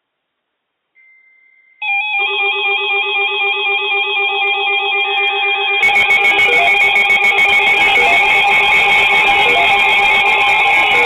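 Music: warbling electronic tones at several steady pitches start suddenly about two seconds in, and a fuller, denser layer of music joins them about six seconds in.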